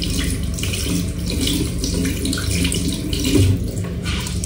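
Water running from a bathroom tap into the sink, splashing over a makeup-remover glove held under the stream to wet it.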